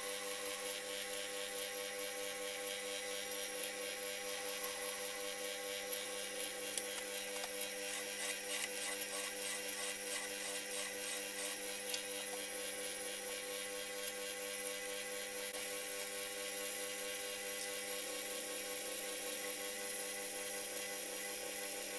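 Belt-driven metal lathe running steadily, its motor and drive giving a constant whir with several steady tones. For a few seconds near the middle, a flat file is stroked against the spinning work with a rhythmic scraping, and the cut grows slightly louder later on.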